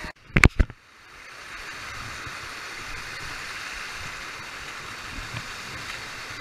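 Stream water rushing steadily down a rock-slab chute. In the first second comes a quick cluster of sharp knocks from a hand on the action camera, and the water is briefly muffled.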